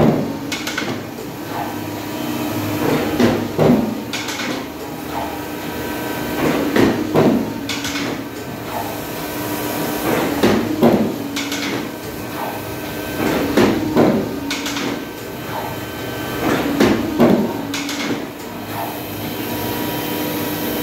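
Polar 92 EM-Monitor paper guillotine running with a steady hum, its clamp and knife coming down on a stack of printed sheets in repeated knocking strokes, about six of them three to four seconds apart.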